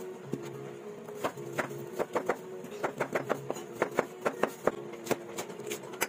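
Kitchen knife slicing ginger on a plastic cutting board: a run of sharp, irregular taps of the blade hitting the board, a few each second, starting about a second in. A steady low hum sits underneath.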